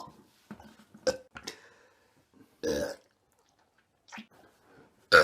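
A person belching in a series of short burps, with a longer one about three seconds in and the loudest right at the end.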